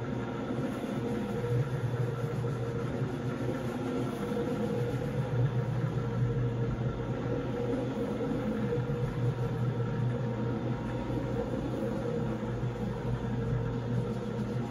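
Electric rotary scrubbing machine running steadily, its spinning brush disc shampooing a wet, foamy rug: a constant low motor hum over an even wet scrubbing noise.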